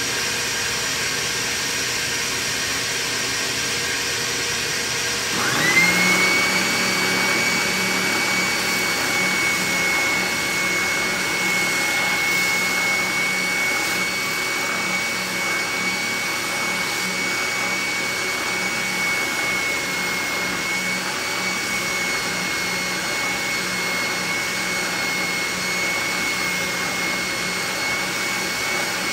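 Spindle sander and shop-vacuum dust extraction running. About five seconds in, a motor spins up with a quick rising whine that settles into a steady high whine over a hum, while a steel knife blank is worked against the sanding drum.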